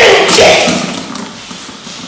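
A person gagging and bringing up a gush of the warm water they drank, induced by fingers pressed on the back of the tongue: a water-cleansing vomiting practice meant to clear phlegm. The sound starts suddenly and loudly, then fades over about a second.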